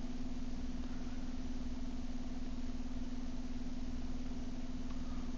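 A steady background hum with one constant low tone, unchanging throughout.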